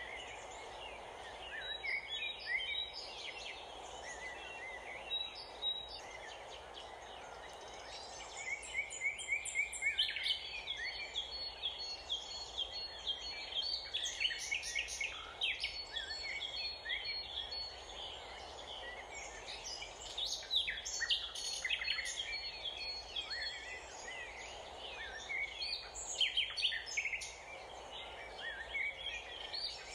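Songbirds chirping and singing in quick, overlapping calls and short trills, busiest through the middle, over a steady background rush.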